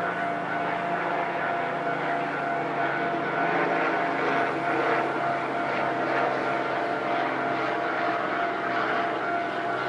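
Japanese railway level-crossing alarm sounding steadily on one tone while a train passes over the crossing, the rumble and clatter of its wheels on the rails building from about three seconds in.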